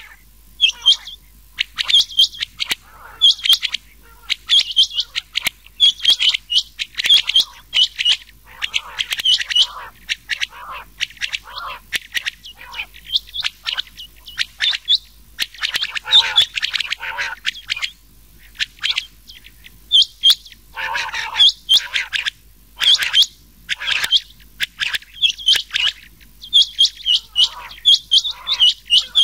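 Rain quail and another quail calling together, a mixed call recording used as a quail-hunting lure. It is a rapid run of short, sharp high-pitched notes in quick clusters, with a few lower, rougher notes around the middle and near the end.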